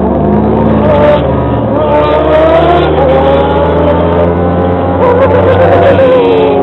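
A vehicle engine running loudly, its pitch wavering and gliding down near the end as the revs change.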